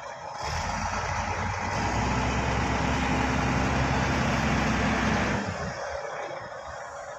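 Bulldozer's diesel engine picking up just after the start and running hard and steady, then dropping back to a lower, quieter note about five seconds in.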